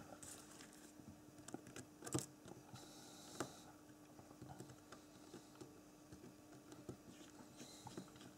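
Near silence with faint, scattered small clicks and scrapes of a small screwdriver working a tiny nut off the pin of an H0 model steam locomotive's rod linkage. The sharpest click comes about two seconds in.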